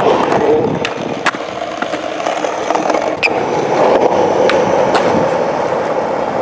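Skateboard rolling: a steady wheel rumble with several sharp clicks and knocks along the way.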